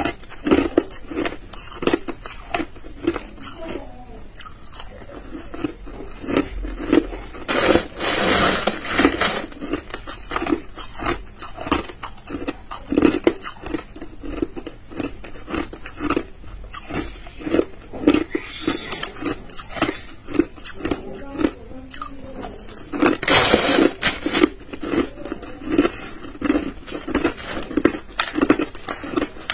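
Crushed ice being chewed, crisp crunches repeating at about two to three a second. Two longer, louder stretches of crunching come about eight seconds in and again about two-thirds of the way through.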